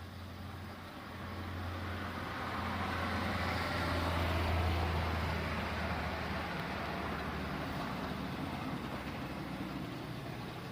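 A motor vehicle passing on a road: its engine and tyre noise grows louder over a few seconds, peaks about halfway through, then slowly fades away.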